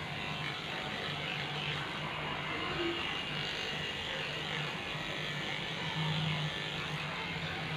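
Cordless pet hair clipper running with a steady buzz as it shears body coat on a Shih-tzu.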